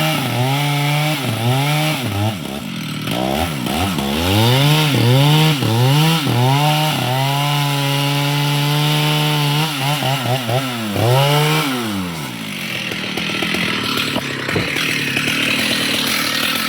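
Chainsaw engine cutting wood, its pitch dipping under load and recovering again and again, held at full speed for a few seconds, then dropping away about twelve seconds in. A rough, steady noise without any engine tone follows.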